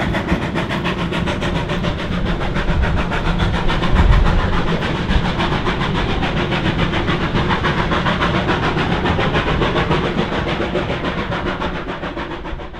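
Heritage steam train's wooden passenger carriages rolling past on the track: a steady rumble with a rapid rattle, fading out near the end.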